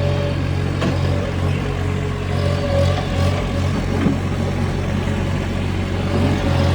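Bobcat S70 skid-steer loader's diesel engine running steadily under throttle, with a thin whine that comes and goes and a couple of light knocks.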